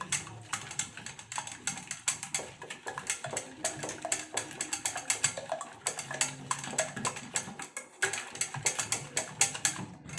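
Eggs and sugar being beaten in a bowl with a hand utensil: fast, rapid clicking of the utensil against the bowl, with a brief break near the end.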